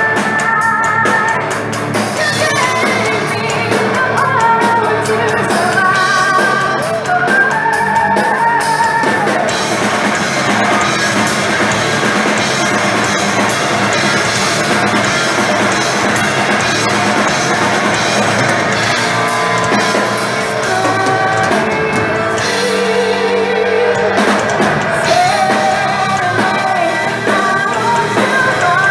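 Live progressive metal band playing loudly: distorted electric guitars and a drum kit, with a woman's sung vocal line coming in over them.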